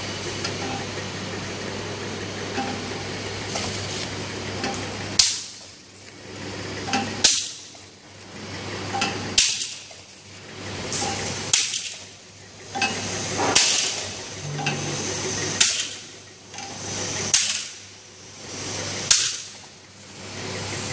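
Sticker labeling machine running with a steady motor hum. From about five seconds in, a sharp click comes about every two seconds with each labeling cycle, followed by a swell of machine noise.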